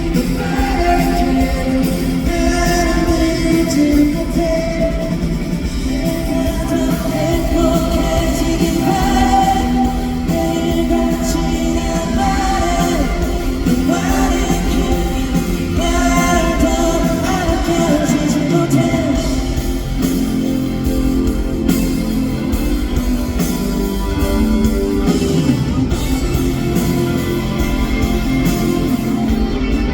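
Live pop-rock band playing a song, with a lead vocal over electric guitar, bass and drums, heard through the hall's amplification.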